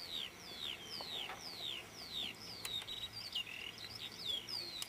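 Birds singing: a continuous run of high whistled notes, most sliding downward, about two a second, with other short chirps mixed in.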